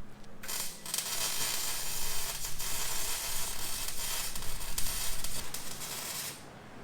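Welder joining exhaust pipe on a car exhaust system: a steady hiss that starts about half a second in, breaks off briefly just after, and stops near the end.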